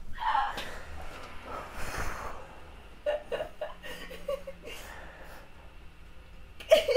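A woman laughing softly under her breath in breathy chuckles, with a few short murmured voice sounds about three seconds in and a louder one near the end.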